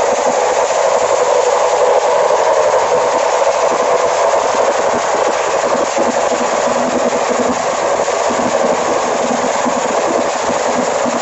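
Several two-stroke motorcycles with large open, cone-shaped exhausts revving hard together at once, a loud, unbroken blare.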